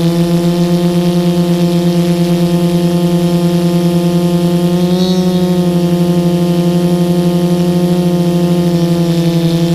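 Multirotor drone's electric motors and propellers running in flight, a loud steady buzzing hum picked up by the onboard camera. The pitch rises briefly about five seconds in, then settles back.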